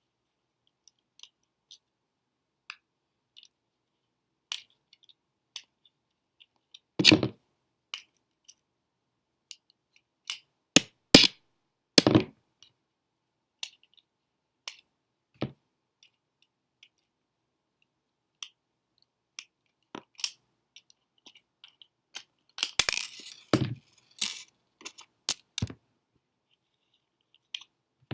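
Small plastic parts of a Black Diamond Cosmos headlamp clicking and knocking as it is handled and taken apart: scattered light clicks, a few louder knocks, and a quick run of clicks and clatter about two-thirds of the way through.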